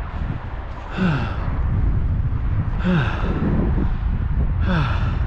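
A person's voiced sighing exhales, three of them about two seconds apart, each falling in pitch, over a steady low rumble of wind on the microphone.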